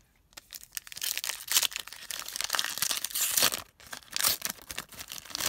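Foil trading-card pack wrapper being torn open and crinkled by hand: a run of loud crackling and crinkling that starts about a second in, with a brief pause near the end.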